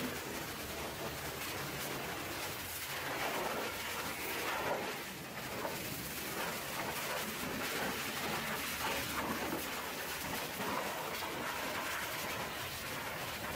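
Pressure-washer lance blasting water onto a dump truck's chassis and engine bay: a continuous hiss of spray on metal, its tone shifting as the jet moves over different parts.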